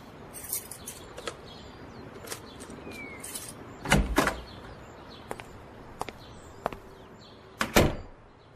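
Sound effects of a door: scattered light clicks and taps, then a louder thud of the door opening about four seconds in and another as it shuts near the end.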